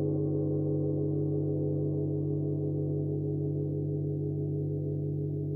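A gong ringing on after being struck, many overlapping tones held and slowly fading, with a slow wavering pulse in its middle tones; no new strike.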